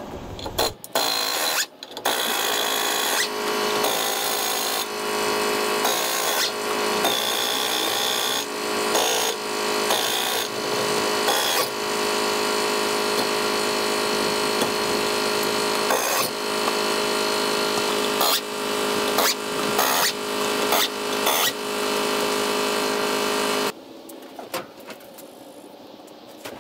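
A power tool running almost continuously for about twenty seconds with brief interruptions, then cutting off suddenly near the end, as the wheel bolts are taken off the front wheels of a 1960 VW Beetle.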